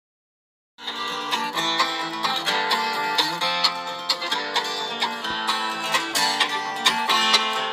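Background music of quick plucked string instruments in a bright country-bluegrass style. It cuts in suddenly from dead silence about a second in.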